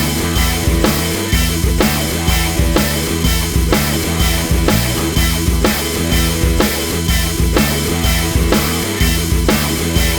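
Background music with a steady drum-kit beat and a stepping bass line.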